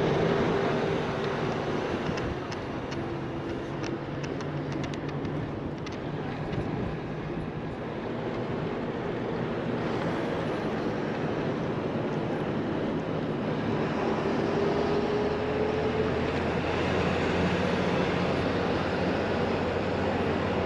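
Steady engine and road noise of a moving bus, with the engine note rising about two-thirds of the way through.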